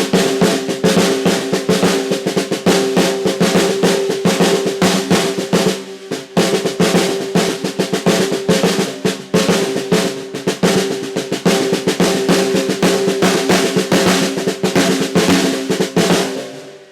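British Drum Co. Archer snare drum fitted with TAMA die-cast hoops, played in fast strokes and rolls. Its shell rings with a clear, steady pitch under the hits, and near the end the playing stops and the ring dies away.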